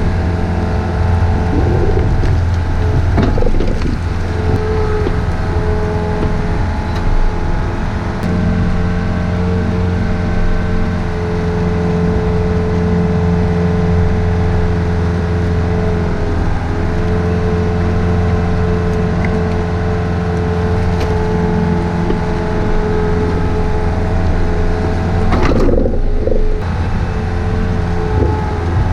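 Compact excavator's diesel engine running steadily at working revs, its pitch shifting slightly a few times. There is a short clatter near the end.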